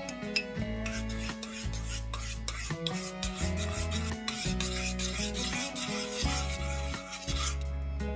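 A spoon stirring and scraping around a stainless steel saucepan of boiling barbecue sauce, a rough rasping that stops near the end. Background music plays throughout.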